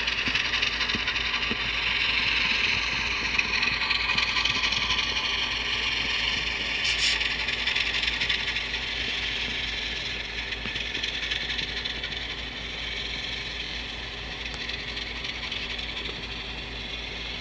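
Model train passing close by: an L&N model diesel locomotive and its freight cars rolling along the track with a steady rattling hiss of wheels on rail and a motor hum. It is loudest in the first half as the locomotive nears and passes, with a brief sharper flare about seven seconds in, then eases as the cars follow.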